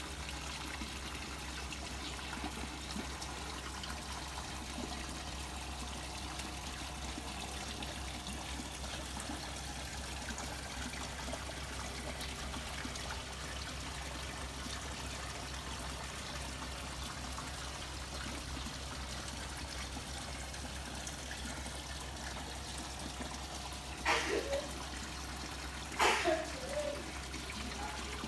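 Water trickling steadily into a koi pond, with a low steady hum underneath. Two short, louder sounds come near the end.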